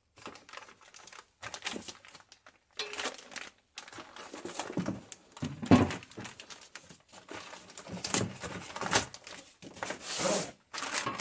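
Plastic wrapping crinkling and a cardboard box rustling as plastic-wrapped metal TV wall-mount brackets are lifted out and handled, with a few knocks as the brackets are set down on a wooden workbench.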